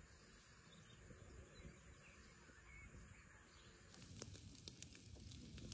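Near silence with faint outdoor ambience, then from about four seconds in faint scattered crackling from a charcoal fire roasting whole eggplants and peppers.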